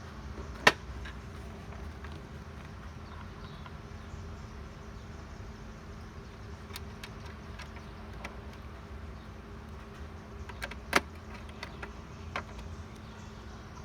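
A steady low electrical-sounding hum with a few sharp clicks or taps, the loudest about eleven seconds in.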